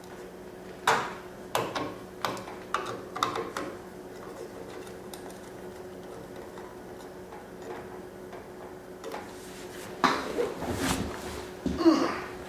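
Sharp clicks and knocks of a kerosene heater's pump cover and parts being handled and refitted, a cluster in the first few seconds and more clatter near the end, over a steady low hum. The cover is being reseated because it was not on straight.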